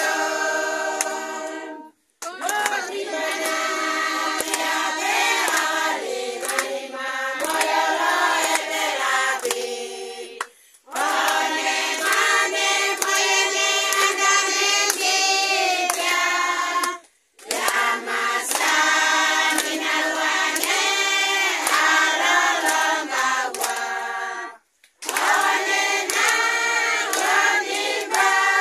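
A group of women and children singing together unaccompanied, with hand clapping. The singing drops out to silence briefly four times.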